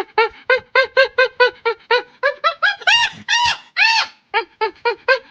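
Monkey calls: a rapid run of short hooting calls, about four a second, climbing in pitch, with a few longer drawn-out calls around the middle.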